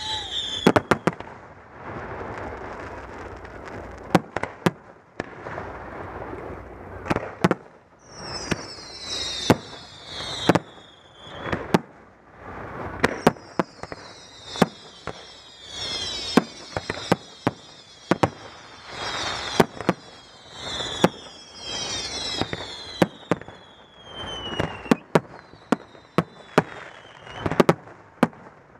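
Fireworks display: a steady run of sharp bangs from bursting shells, and at several points clusters of high whistles sliding down in pitch.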